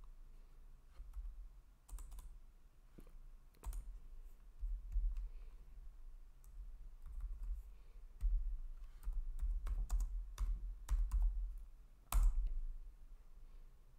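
Typing on a computer keyboard: scattered keystrokes, a quicker run of typing about eight to eleven seconds in, and a single louder keypress just after twelve seconds.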